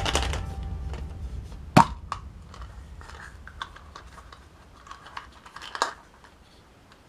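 Scattered light clicks, taps and crinkles of small plastic toys and packaging being handled, with one sharper click a bit under two seconds in and another near the end. Background music fades out at the start.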